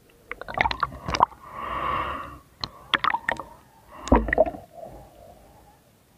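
Underwater clicks and knocks in irregular clusters, with a gurgling rush of bubbles about two seconds in, heard through a submerged camera.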